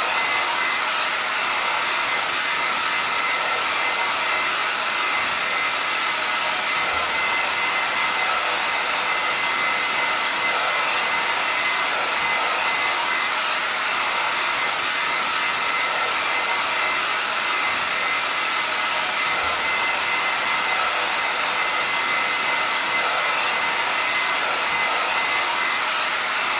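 Hair dryer blowing steadily: an even rush of air with a thin whine from the motor and fan.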